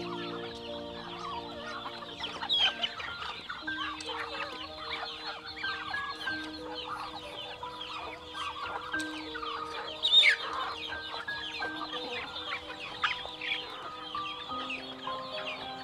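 Chickens clucking and calling continually, with one louder call about ten seconds in. Background music of held notes plays underneath.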